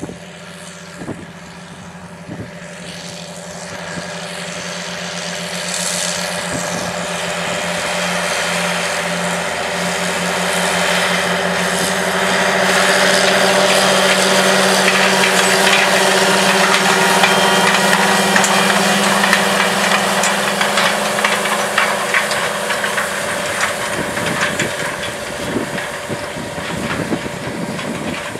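Large John Deere farm tractor's diesel engine running steadily under load while pulling a vertical tillage implement through wheat stubble, with the rushing and rattling of the implement working the soil. It grows louder over the first half as the rig comes closer, then eases off.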